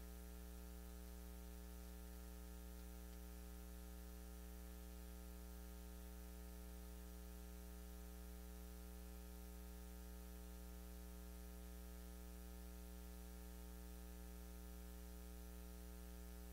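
Steady electrical mains hum with a ladder of overtones over a faint hiss, unchanging throughout.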